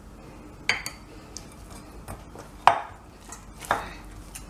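Kitchenware clinking and knocking: a few short, sharp knocks, the loudest about two-thirds of the way in.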